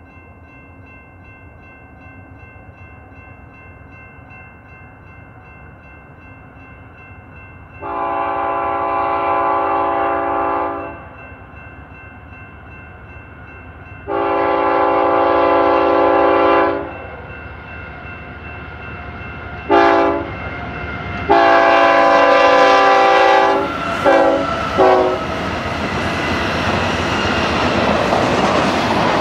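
Diesel locomotive air horn sounding the grade-crossing signal as the train approaches: two long blasts, a short one, then a long one that ends in two quick toots. Then the rumble and wheel noise of a double-stack intermodal freight train builds as the cars pass.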